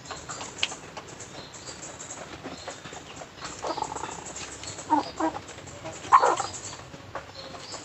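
Several short animal calls, the loudest a little after six seconds in, over a steady high hiss.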